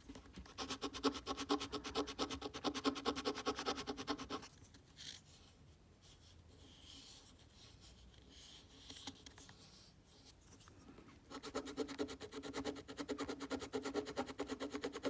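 A coin scratching the latex coating off a paper Cashword scratch-off lottery ticket in rapid back-and-forth strokes, a buzzing rasp. It pauses for several seconds in the middle and starts again about eleven seconds in.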